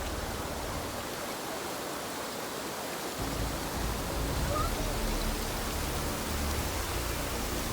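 Steady rushing of falling water from a small mountain waterfall, with a low uneven rumble joining about three seconds in.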